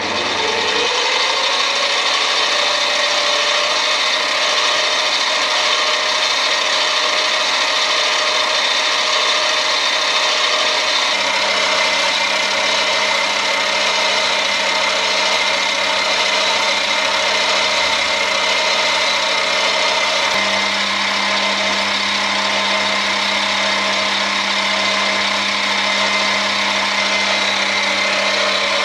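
Mini lathe running with its leadscrew turning: a steady motor whine with gear-train noise, spinning up in the first second. The pitch shifts slightly about 11 and 20 seconds in.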